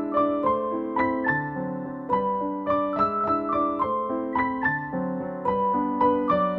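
Background music: gentle piano or electric-piano melody over held chords, with new notes struck a few times a second.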